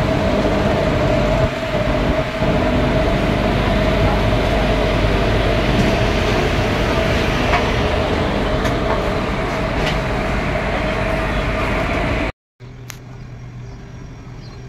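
Indian Railways diesel locomotive running at idle close by: a steady loud engine rumble with a constant whine over it. About twelve seconds in it cuts off abruptly, leaving a much quieter steady hum.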